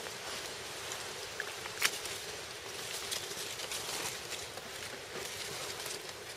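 Knife cutting and hands working deer meat out of a carcass: soft scattered clicks, ticks and rustles over a steady hiss, with one sharper click about two seconds in.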